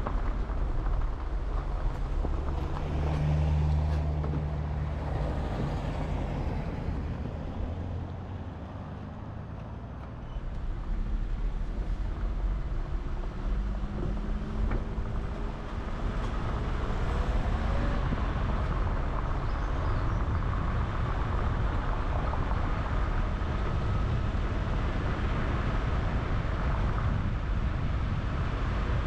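A car driving: steady engine and road noise, which eases briefly about eight seconds in and then picks up again.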